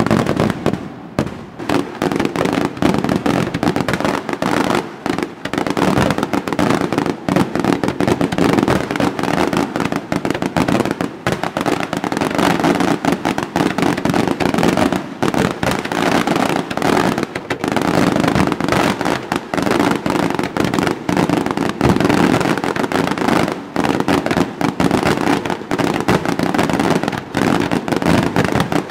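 Aerial fireworks barrage: many shells bursting in quick succession, the bangs running together with crackle into a near-continuous din.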